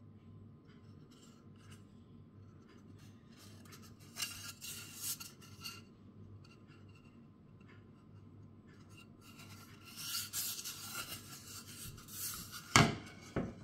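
Hands rubbing and handling a wooden table tennis blade, giving two spells of soft brushing, scraping noise. Near the end comes a sharp knock, then a smaller one, as the blade is set down on a stainless steel counter.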